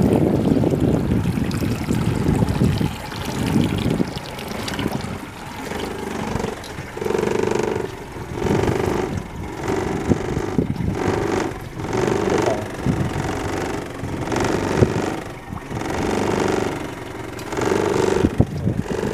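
Yamaha 90 outboard motor running with water rushing past the hull. About four seconds in the sound drops quieter and settles into a pulsing that rises and falls about once a second.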